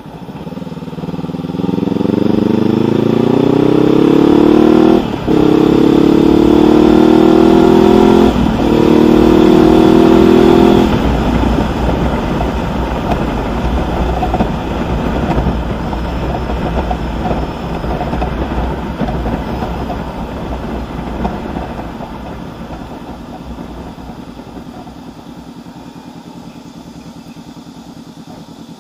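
Honda CB500X parallel-twin engine through a Mivv Suono aftermarket exhaust, accelerating hard from a stop. The note climbs in pitch, with two brief breaks as it shifts up. After about 11 seconds the throttle rolls off and the exhaust drops to a lower, rougher burble, easing to quieter steady running by the end.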